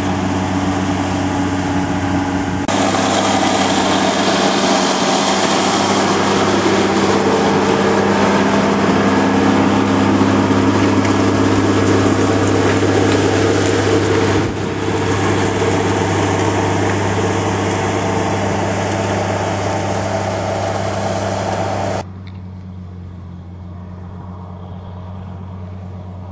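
Case Quadtrack tracked tractor's diesel engine running steadily under load, hauling a deep-tine cultivator through the soil: a steady low drone with a noisy rush of soil and steel over it. The sound steps louder about three seconds in, dips briefly near the middle, and turns quieter and duller for the last few seconds.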